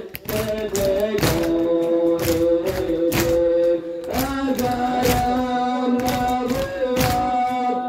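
A group of young male voices chanting a Shia mourning noha in long held notes, the melody stepping to a new pitch about four seconds in, over rhythmic chest-beating (sineh-zani) at about two strikes a second.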